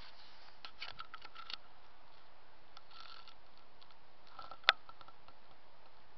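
Small clicks and ticks of a handheld camera being handled while it is panned, in two short clusters, then one sharp, louder click about three-quarters of the way through, over a steady faint hiss.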